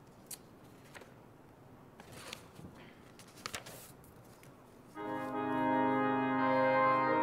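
Soft rustles and a few small clicks, then about five seconds in a church organ comes in loudly with held chords, starting the introduction to a hymn.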